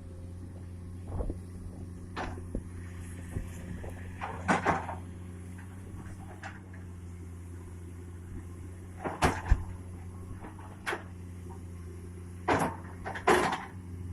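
Excavator diesel engine running steadily, with several irregular sharp clanks and knocks from the machine as it works its way out of the pit; the knocks are the loudest sounds.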